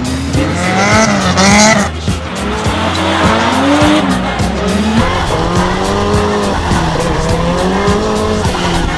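Drift cars' engines revving hard, rising and falling in pitch, with tyres squealing as the cars slide through corners.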